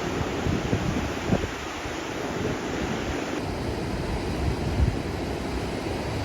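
Wind buffeting the microphone over a steady rush of sea surf, in irregular low gusts. About three seconds in the hiss abruptly turns duller, as at a cut between shots.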